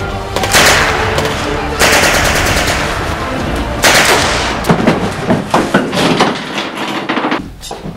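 Gunfire: a few loud shots that ring out, then a fast string of shots from about halfway through that cuts off suddenly near the end, with music under the first couple of seconds.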